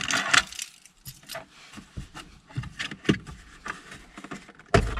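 Plastic centre-console trim of a Toyota Prius being pried and pulled loose by hand: a run of clicks, rattles and scrapes, with a heavy knock near the end.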